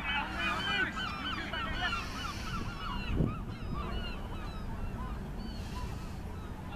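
A flock of birds calling, many short overlapping calls that are thick for the first couple of seconds and then thin out to scattered calls.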